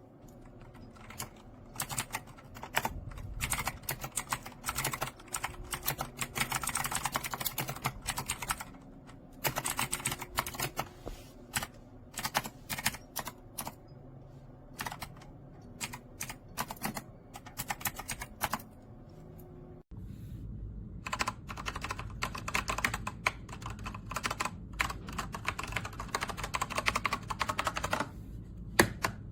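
Typing on a Keychron C2 full-size mechanical keyboard with Keychron Brown tactile switches: fast runs of key clatter with short pauses. The sound breaks off sharply about twenty seconds in and then resumes.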